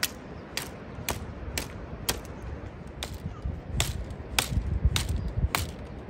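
Machete blade chopping at a thin branch held in the hand: a steady run of sharp chops, about two a second.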